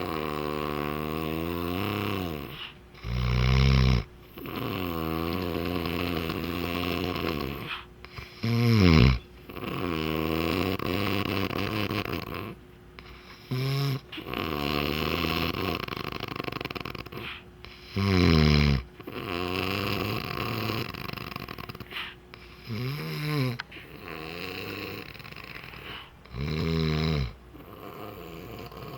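Loud snoring in a steady cycle: a short, very loud, low snore about every five seconds, six in all, each followed by a longer out-breath carrying a wavering pitched tone.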